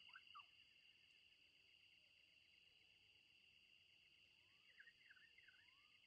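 Very faint natural ambience: insects keep up a steady high-pitched trill, and a bird gives a few quick slurred whistles at the very start and again about five seconds in.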